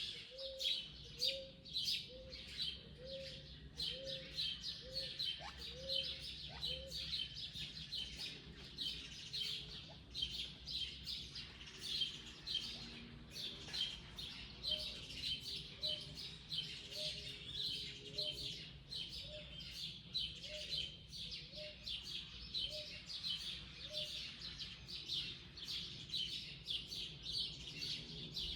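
Many wild birds chirping and calling at once, a dense, continuous high-pitched chorus. Under it a lower short note repeats about once every half second or so, for the first several seconds and again through the middle.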